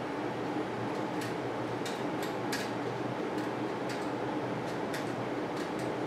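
Light, irregular clicks and ticks of bicycle cables and their housing being handled and pushed through the frame's cable guides, about nine in all, over a steady room hum.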